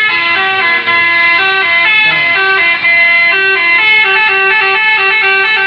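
Bus 'telolet' air horn playing a tune: a loud, unbroken run of short horn notes stepping up and down in pitch.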